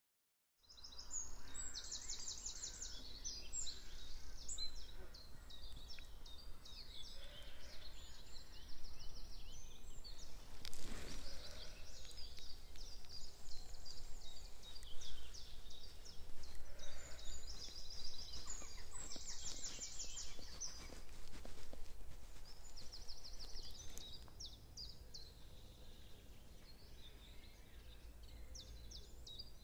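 Several songbirds singing, with repeated high trills and chirped phrases, over a steady low rumble. One brief knock about eleven seconds in, and the birdsong grows quieter near the end.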